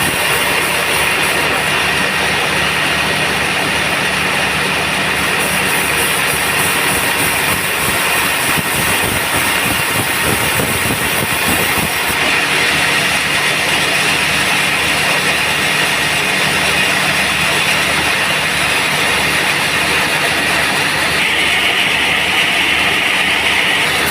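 Sawmill band saw running steadily while sawing teak, with a low pulsing engine hum under a continuous hiss; the hiss grows brighter about three seconds before the end.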